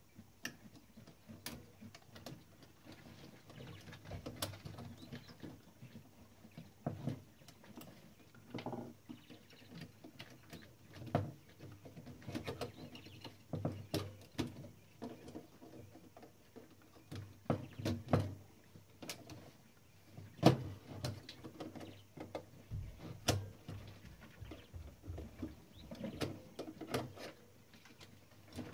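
Irregular small clicks, taps and knocks of hand tools and metal parts as a Klein Adler 2 portable typewriter's mechanism is worked on during repair, with a few sharper knocks among them.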